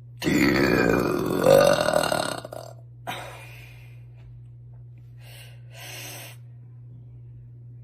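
A woman's long, loud, deep burp lasting about two seconds, followed by a few faint short sounds.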